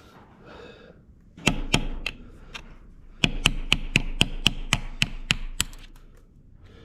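Hammer blows on a screwdriver driven against a cylinder sleeve in a Ford 8N tractor engine block: a few single strikes, then a quick run of about a dozen at about four a second, with a metallic ring.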